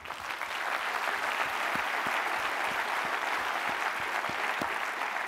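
Audience applauding, starting up at once and holding steady.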